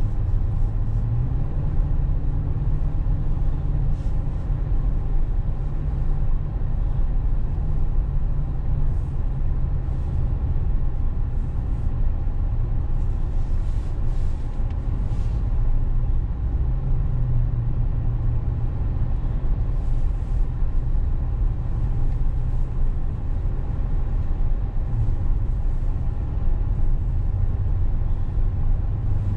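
Car cabin noise while driving at road speed: a steady low rumble of engine and tyres. About halfway through, an oncoming vehicle passes with a brief rush of air.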